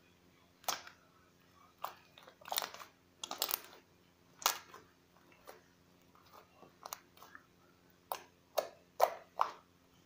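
Crunchy slime being squished and worked by hand, giving irregular crackles and sharp pops, with a quick run of louder pops near the end.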